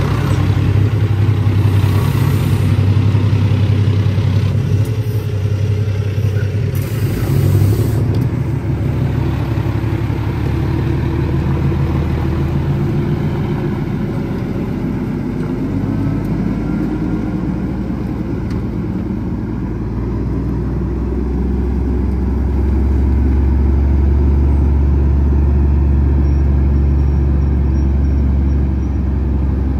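International ProStar's ISX Cummins diesel engine pulling under load. Its engine note steps down and back up several times, and it runs deepest and loudest in the last third.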